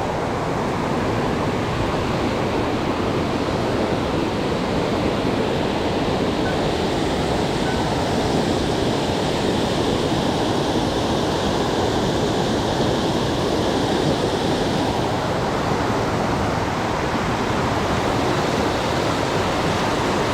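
Steady rushing of falling water from a small waterfall, an even noise without pause or change.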